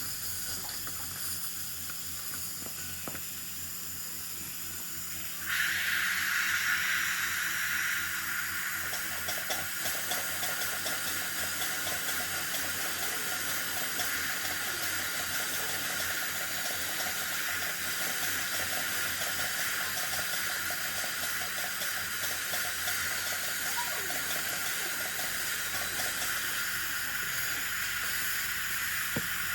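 Dental handpiece with water spray cutting an access cavity in a molar tooth: a steady hiss that grows louder and shriller about five seconds in and holds there.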